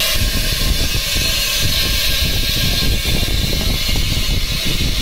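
Compressed air hissing steadily in a phone-repair bubble-remover (autoclave) chamber, starting abruptly, over a low rumble; the chamber is under pressure to squeeze air bubbles out of the OCA layer on the screen.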